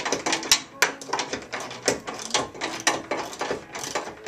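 Ratchet wrench clicking in quick, uneven strokes while driving lag screws.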